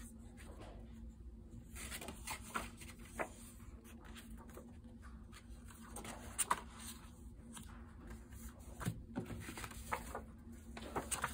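Loose paper notecards being handled, lifted and slid against one another: soft rustling with scattered light taps and clicks, over a faint steady hum.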